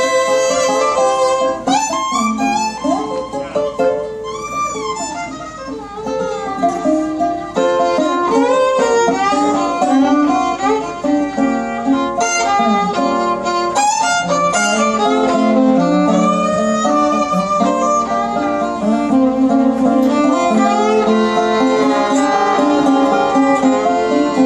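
Instrumental break in a country song: a bowed fiddle plays the melody with sliding, bending notes over a 1930s National four-string tenor resonator guitar with an all-metal body.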